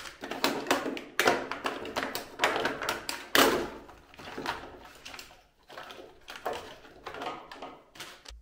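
Small toiletry bottles and jars being handled and set down on a shelf: a run of light clicks, taps and knocks, the loudest about three and a half seconds in.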